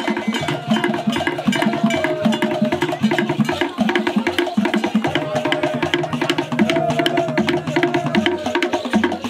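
Wooden log drums and hand drums beaten in a fast, dense rhythm, with a held, wavering high note running over the drumming.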